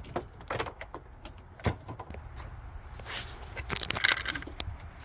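Scattered knocks and clicks of hands working on the boat, with a stretch of scraping and rustling about three seconds in, over a low steady hum.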